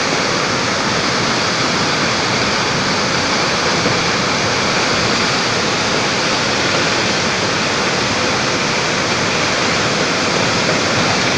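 Cloudburst floodwater and debris flow pouring down a rocky cliff gully: a steady, loud rushing of muddy water.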